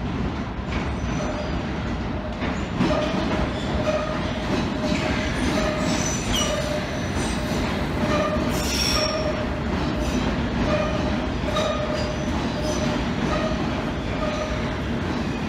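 London Underground S Stock train running into the platform: a steady rumble of wheels on rail that grows louder about three seconds in, with a tone that swells and fades roughly once a second and a short hiss just under nine seconds in.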